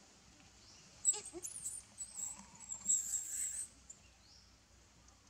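Baby macaque squealing, a run of high-pitched, wavering squeals starting about a second in and lasting about two and a half seconds: distress cries of an infant being pushed off by its mother.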